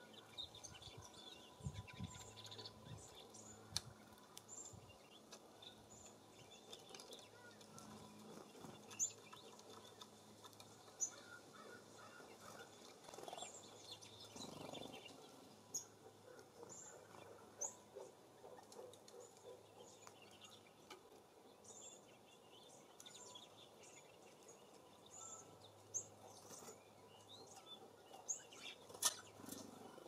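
Small songbirds at a feeder giving faint, short, high chirps and calls, scattered throughout. A few sharp taps stand out, the loudest near the end.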